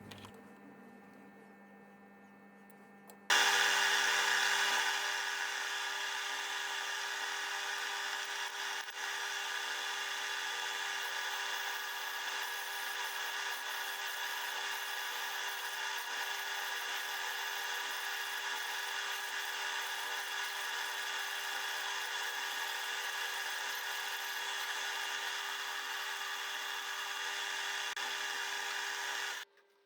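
A power tool running steadily, starting suddenly about three seconds in and stopping just before the end.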